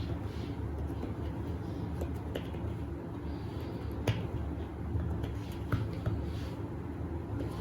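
Scattered short, sharp clicks and taps, the loudest about four seconds in, over a steady low hum.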